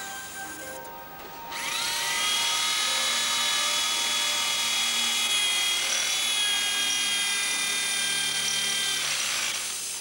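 Hand-held electric drill spinning up about one and a half seconds in, running at a steady high pitch for about seven seconds, then winding down near the end.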